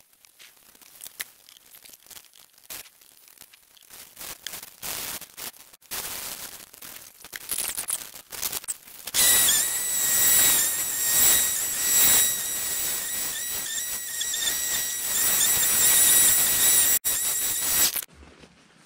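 A snowblower running, with its sound greatly sped up along with the time-lapse, so it comes out as a loud, wavering, high-pitched whine like a dentist's drill. For the first half there are only scattered sped-up crackles and clicks. About nine seconds in the whine starts, and it cuts off suddenly near the end.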